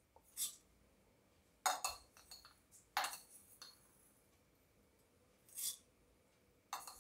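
A handful of short, separate clinks and crackles, about five in all, as mustard seeds are spooned into hot coconut oil in a saucepan and start to pop.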